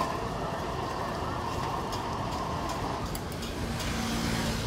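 Electric blender running with a drink in its jug, a steady motor whir that changes about three seconds in.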